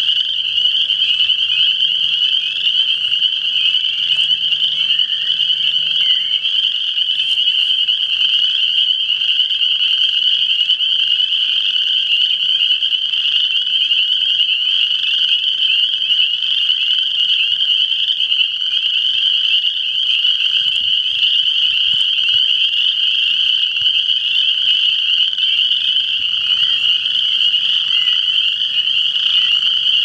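A dense chorus of many small frogs calling together, a high-pitched, unbroken wall of calls that holds steady with no pauses.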